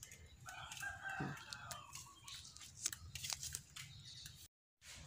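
A rooster crowing faintly in the distance: one drawn-out call starting about half a second in and lasting under two seconds, followed by a few soft clicks.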